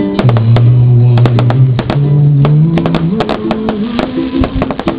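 Loud music with a bass line that steps from note to note, mixed with many sharp, irregular cracks of fireworks going off, some in quick clusters.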